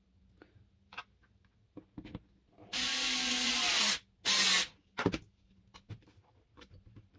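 A handheld power tool runs in two short bursts: about a second, then a brief half-second one, with scattered clicks and knocks of parts being handled around them.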